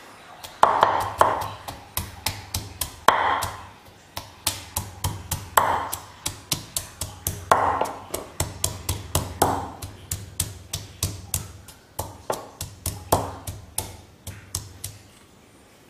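Garlic cloves being pounded in a mortar with a wooden pestle: a steady run of quick knocking strokes, a few a second, some heavier with a hollow knock, stopping shortly before the end.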